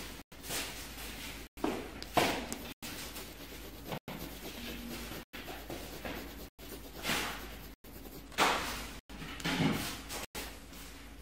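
Colored pencil scratching on paper in short, uneven strokes, a few of them louder swishes. The sound drops out briefly at regular intervals.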